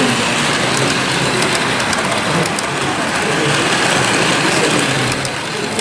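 Model train running on an exhibition layout, with small high clicks as its wheels cross the track, over a steady background of hall chatter.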